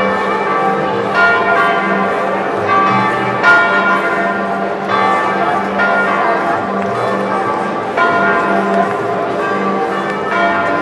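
Bells ringing: many overlapping ringing tones, with new strikes coming every second or so.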